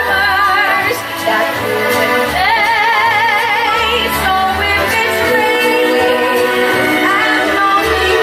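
A song with a singer holding long notes with strong vibrato over an accompanying backing track.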